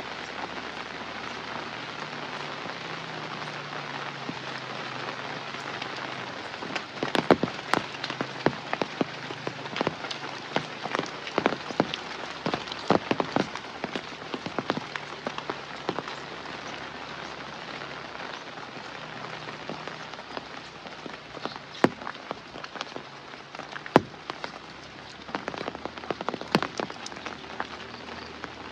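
Steady rain falling, with a dense run of sharp drop taps about a quarter of the way in and another cluster near the end.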